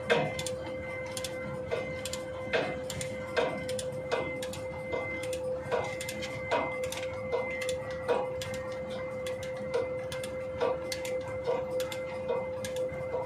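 Socket ratchet wrench clicking as it is swung back and forth on a bolt, with stronger clicks at an even pace a little faster than once a second. A steady high hum runs underneath.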